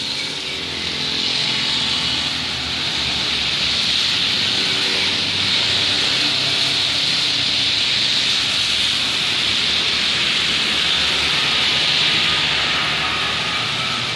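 Steady rain hissing on a wet road, with the swish of tyres through standing water and the engines of motorcycles and cars passing.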